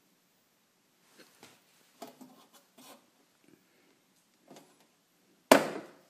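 The plastic catch on the side access panel of a Clarke MIG 160EN welder being handled, with a few light clicks and rubs. Near the end comes one sharp, loud clack as the catch lets go and the panel opens.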